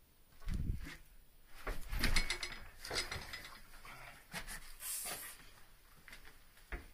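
A man making animal-like eating noises with his mouth: short grunts and snuffles, crackly smacking clicks, and a brief hiss about five seconds in.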